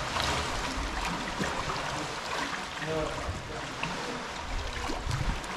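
Shallow lake water sloshing and trickling around people wading through it.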